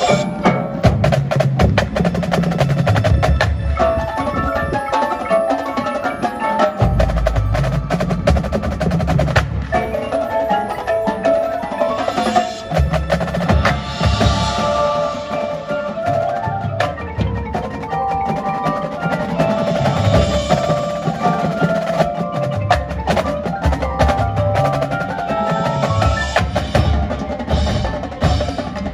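Marching percussion ensemble performing: a drumline of snare drums, tenor drums and bass drums plays dense rhythmic figures over marimbas and vibraphones carrying the melody, with low bass notes stepping in pitch.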